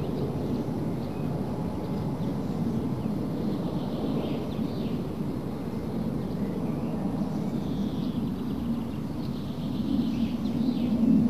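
Steady low rumbling background noise with faint short high chirps now and then, swelling slightly near the end.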